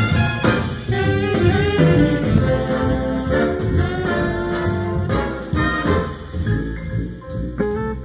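Big band jazz instrumental passage: a brass and saxophone section playing, heard as played back through hi-fi bookshelf loudspeakers.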